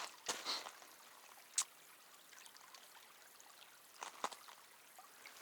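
Faint, steady rush of a small stream, broken by a few short, sharp snaps about half a second, a second and a half, and four seconds in.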